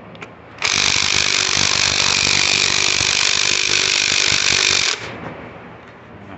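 Cordless impact wrench running on a cylinder-head bolt, a steady hammering buzz that starts about half a second in and stops abruptly after about four seconds.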